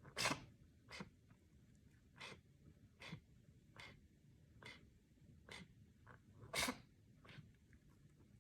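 Repeated coughing: about ten short coughs roughly a second apart, the strongest right at the start and again about six and a half seconds in.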